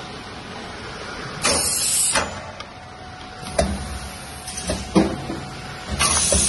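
Van Doren lid-placing machine cycling: two short bursts of air hiss from its pneumatics, about a second in and near the end. Between them come several sharp mechanical clacks, over a steady running hum.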